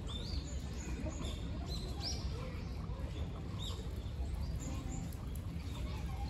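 Small birds chirping: short, high chirps that rise and fall, scattered through, over a steady low rumble of background noise.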